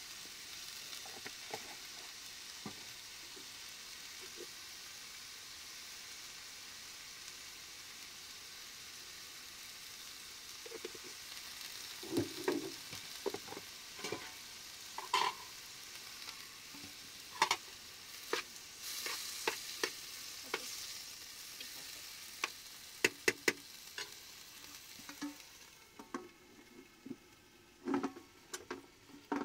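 A steady sizzling hiss, joined from about ten seconds in by scattered clinks and knocks, like a utensil working in a pan; the hiss fades near the end while a few clinks go on.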